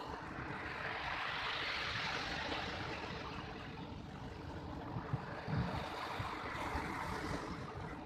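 Big ocean waves breaking and washing up over a pebble beach: a steady rushing surf noise that swells about a second in and again near the end, with a few low thumps around the middle.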